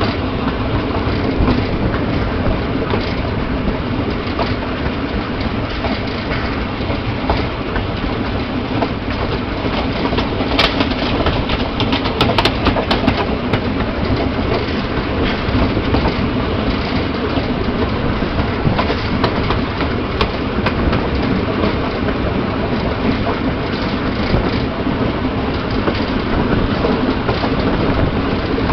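Steam-hauled goods train running, heard from on board: wheels clattering over rail joints and wagons rattling, with a burst of sharp clanks about ten to thirteen seconds in.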